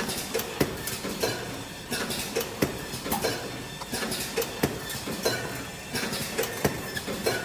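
Automatic glove cartoning machine running, its mechanism clacking about twice a second in a slightly uneven rhythm over a steady machine noise.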